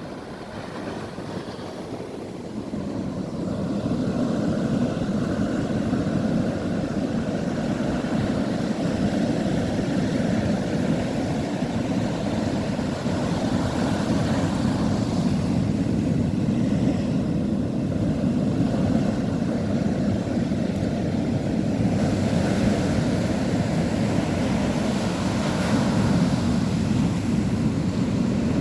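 Ocean waves rolling in: a steady roar of surf that builds over the first few seconds, then swells and eases as waves break.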